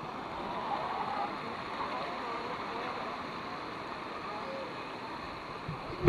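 Steady rush of flowing river water, with the faint chatter and calls of swimmers mixed in.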